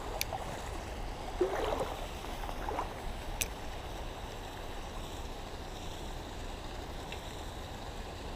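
Steady rush of a shallow, stony creek flowing, with two light sharp clicks, one right at the start and one a little over three seconds in.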